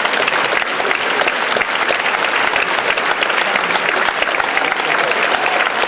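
Audience applauding steadily, many hands clapping in a dense, even stream.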